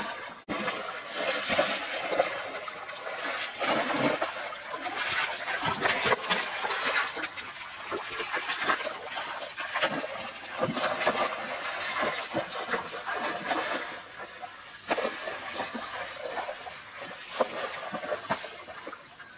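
Water splashing irregularly in a shallow stream as someone wades and scoops through it with a woven basket, over the steady rush of the flowing stream.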